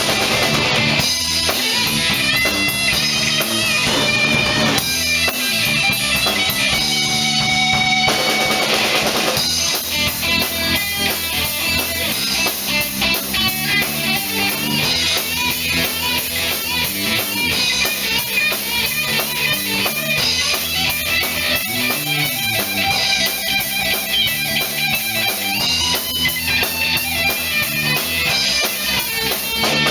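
Band playing an instrumental passage of a song with no vocals: guitar over a steady drum-kit beat.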